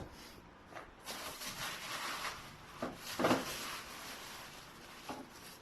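Rustling and scraping of packaging being handled while a keyboard is unpacked, with a couple of soft knocks; the loudest rustle comes about three seconds in.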